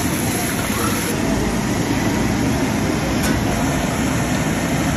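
Chicken pieces deep-frying in a large karahi of hot oil: a loud, steady sizzle and bubbling, with a low rumble underneath.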